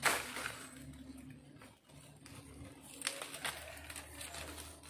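Dry bamboo stems and twigs cracking and rustling as they are handled and broken by hand: a sharp crack at the start, then two more cracks close together about three seconds in.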